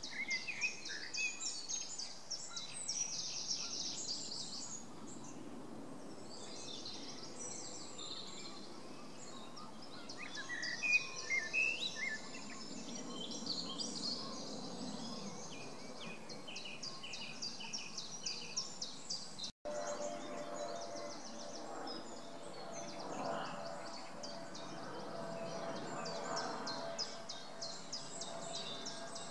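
Outdoor ambience of small birds singing and chirping, with rapid trains of high chirps throughout. The sound drops out for an instant about two-thirds of the way in, after which a faint steady hum runs under the birdsong.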